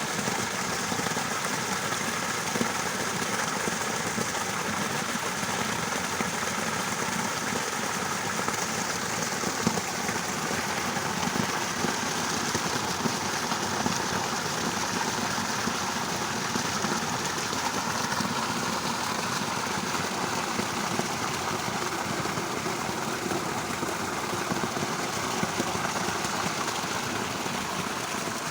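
Steady rain: an even hiss with small scattered ticks of drops, unchanging throughout.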